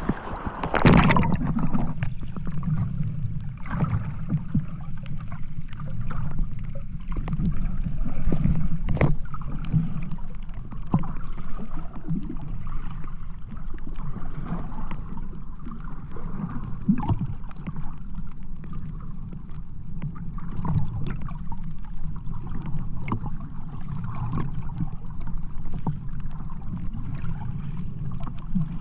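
Sea water splashing and lapping over a low, uneven rumble of wind on the microphone.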